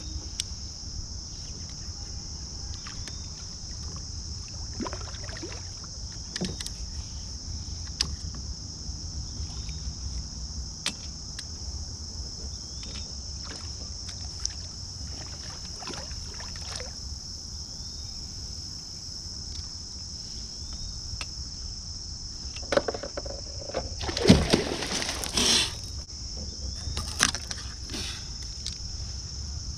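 Steady high buzz of insects over a low rumble, with scattered knocks from the kayak and, about 23 to 26 seconds in, a louder run of knocks and scraping.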